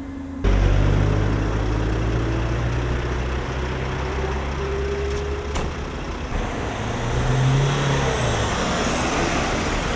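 Heavy road traffic passing close by: a truck or bus engine rumbling with tyre noise, starting abruptly about half a second in, with a slowly rising whine through the middle and another engine swell near the end.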